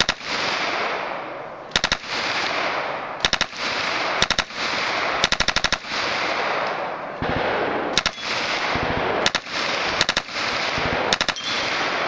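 Open-bolt submachine gun firing about eight short full-auto bursts of two to seven rounds each, with the report trailing off between bursts.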